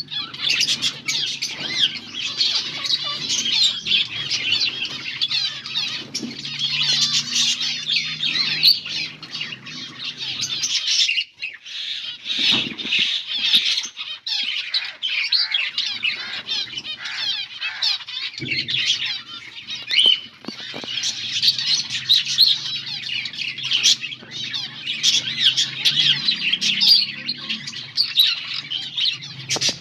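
A flock of finches chirping continuously, many high calls overlapping. A low steady hum runs underneath and drops out for several seconds midway.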